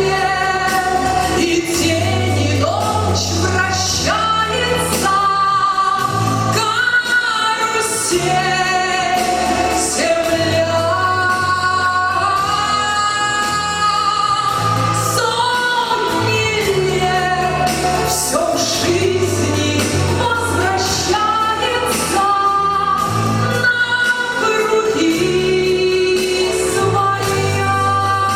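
A pop song: a voice sings a melody over a steady bass line and drum beat.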